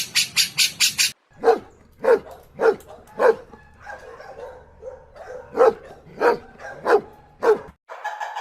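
A dog barking: about eight sharp barks in two runs of four, with a pause between the runs. A rapid run of even, high clicking calls, about six a second, cuts off about a second in.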